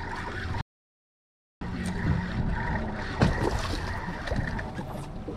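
Steady wind and sea-water noise around a boat's hull, with a low rumble. It is broken by about a second of dead silence, a gap in the audio, about half a second in, and there is one sharp knock about three seconds in.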